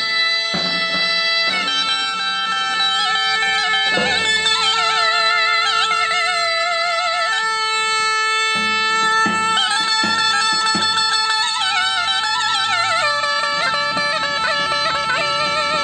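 Zurna, the Turkish double-reed shawm, playing a trill-ornamented folk melody over a steady held drone note.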